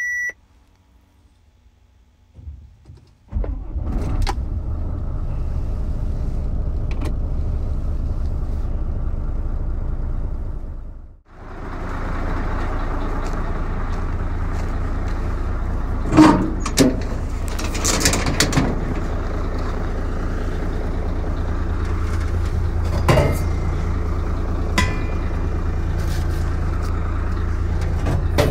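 Mercedes-Benz Actros truck's diesel engine starting from cold about three seconds in, then idling steadily. Over the idle come several sharp knocks and clatters from the truck's side storage box being handled.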